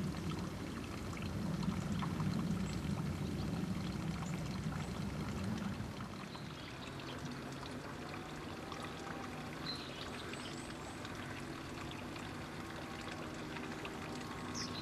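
Running water trickling steadily, with a low rumble that fades out about six seconds in.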